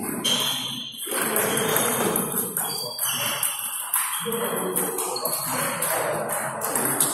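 Busy sports-hall din from several table tennis games: voices talking and the clicking of celluloid-type balls on tables and bats, without pause.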